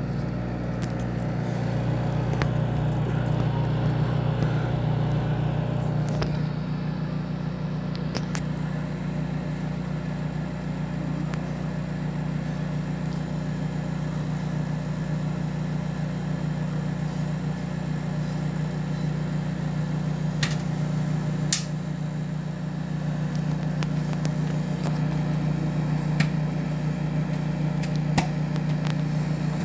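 Microwave oven running with a steady hum while popcorn kernels pop only now and then, about half a dozen sharp single pops spread across the stretch: popping has only just begun.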